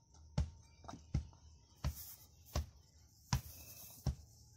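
Hand rammer pounding the soil of a foundation trench, compacting it: six dull thuds in an even rhythm, about one every three-quarters of a second.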